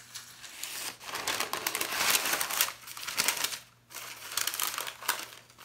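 Parchment paper crinkling and rustling as it is handled, with a dough round lifted on it and lowered into a cast iron Dutch oven. The crinkling comes in two spells with a short pause a little under four seconds in.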